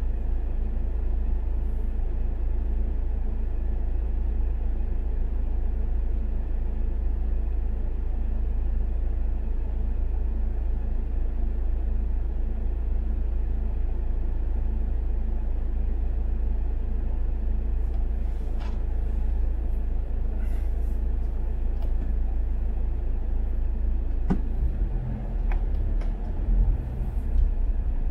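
Steady low rumble of a car in stopped traffic, heard from inside the cabin, with a faint even hum over it. A few faint clicks sound in the second half, and the rumble changes near the end as the car creeps forward.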